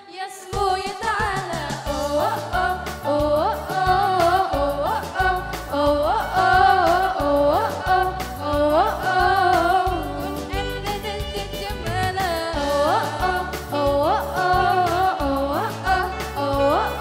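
A young woman singing a melody into a microphone, amplified, over electronic keyboard accompaniment.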